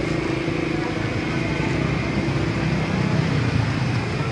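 Steady low rumble of a motor vehicle engine running, with a humming tone that fades out about halfway through.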